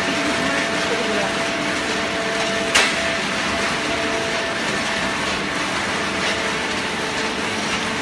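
Steady machine noise with a constant hum from a hydraulic horizontal baling press running, and one sharp click about three seconds in.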